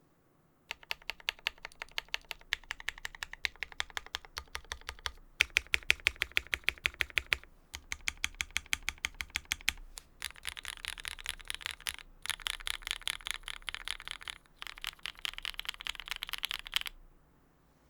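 Typing on a custom keyboard with an aluminium plate, lubed Tealios V2 linear switches with Cherry top housings, and GMK keycaps: runs of keystroke clacks separated by short pauses. The runs become faster and denser about halfway through, and the typing stops about a second before the end.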